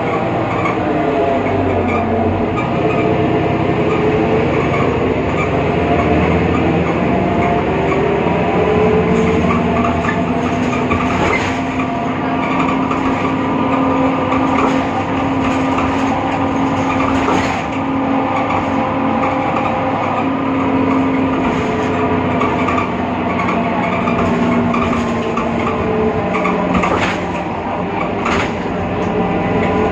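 BredaMenariniBus Avancity Plus city bus under way, its Deutz diesel and ZF Ecomat automatic gearbox running, with a strange whine from the differential made of several tones that slowly rise and fall with speed. A few sharp knocks and rattles come through around the middle and near the end.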